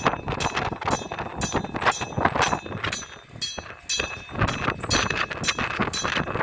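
Electric-bell level-crossing alarm ringing: a metal gong struck over and over, about two or three clangs a second, each with a ringing tone. It is the warning that a train is approaching and the crossing must not be crossed.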